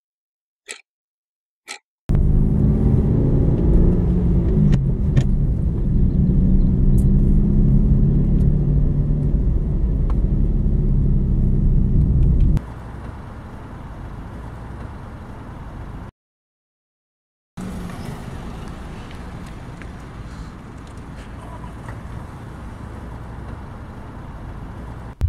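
Car driving, heard from inside the cabin: a steady low engine and road rumble. It drops to a quieter hiss about halfway through, then cuts out briefly before a quieter steady background. A few short ticks about a second apart come before the rumble starts.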